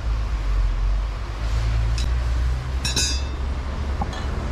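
Steady low hum of a workshop machine running, with a few metal clinks as a forged axe head is handled and set down on a steel bench; the loudest clink, about three seconds in, rings briefly.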